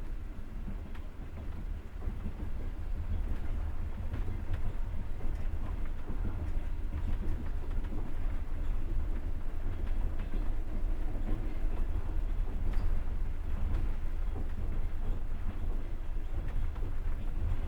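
Passenger train running on the rails, heard from inside a carriage: a steady low rumble with a few scattered faint clicks.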